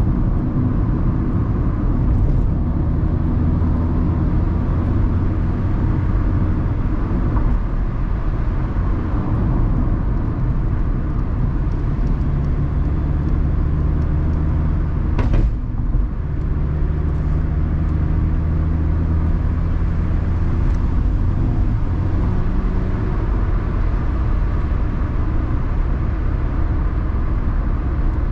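Mazda ND Roadster's four-cylinder engine running while driving, heard inside the open-top cabin with tyre and wind noise. The engine note changes pitch a few times, and there is one short knock about fifteen seconds in.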